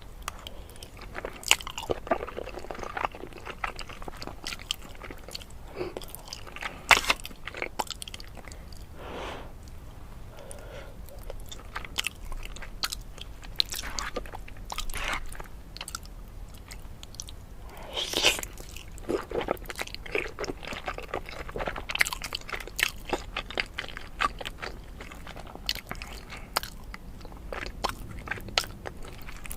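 Close-miked eating: a person biting and chewing crunchy food, with irregular crunches and crackles throughout and louder bites now and then.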